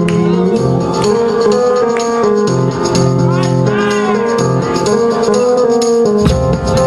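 Loud DJ music played over a sound system for breakdancing, with a steady drum beat, rattling tambourine-like percussion and held chords; a deep bass line comes in near the end.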